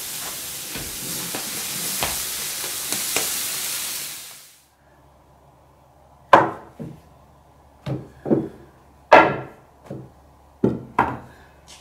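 Food sizzling as it is stirred in a wok, for about four seconds. Then it cuts off, and a wooden rolling pin knocks on a wooden board as hand-rolled noodle dough is rolled out: about eight sharp knocks, mostly in pairs.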